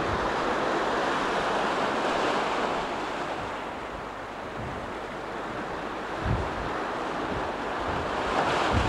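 Sea waves breaking and washing over rocks: a steady surf that swells, eases off midway and surges again near the end. Wind buffets the microphone in low thumps.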